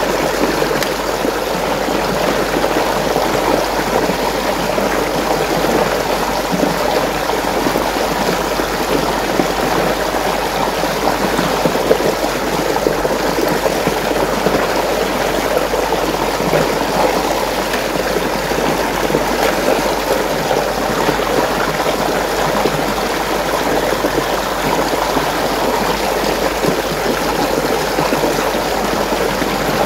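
Water running and swirling in a whirlpool, a steady rushing that goes on without a break.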